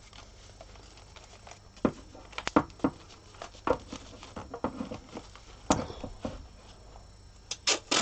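Handling noises: scattered clicks, taps and crinkles from hands working a plastic-wrapped resin doll and rolls of painter's tape. The sharpest clicks come about six seconds in and near the end.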